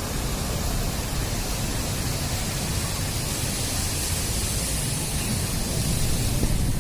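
Steady rushing noise with rough low buffeting: wind blowing across the microphone.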